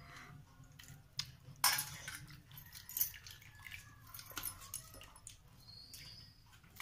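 A hand mixing watered rice (pakhala) in a steel bowl: a few short sloshing, squishing sounds and clinks against the metal bowl, the loudest nearly two seconds in.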